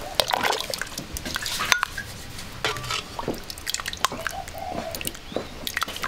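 Irregular small clinks, taps and knocks with water dripping, typical of kitchen work.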